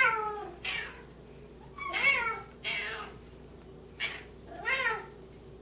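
Domestic cats, Bengals among them, meowing over and over: several separate calls, each rising then falling in pitch, with three loud ones and fainter ones between. The cats are begging for cooked chicken.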